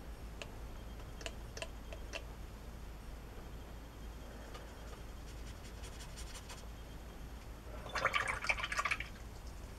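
Faint light ticks of a paintbrush against a metal watercolour tin. Near the end comes a brief splashy swishing: the brush is being rinsed in a water jar.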